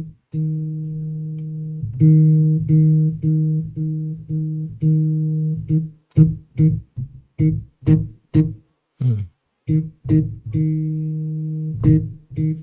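A low bass note played over and over on one pitch: several held notes, then a run of short staccato notes, one of them bending down in pitch about nine seconds in.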